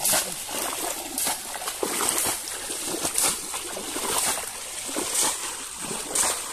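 Pond water splashing and sloshing in repeated irregular splashes, roughly one a second, from people fishing by hand in the water.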